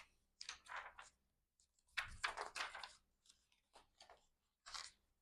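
Paper and card rustling faintly in several short bursts as album inserts are handled, the longest lasting about a second, starting about two seconds in.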